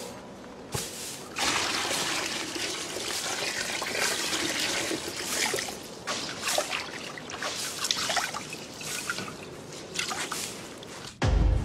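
Water splashing and trickling as cloth is scrubbed by hand in a basin of water, in irregular wet sloshes. Music comes in near the end.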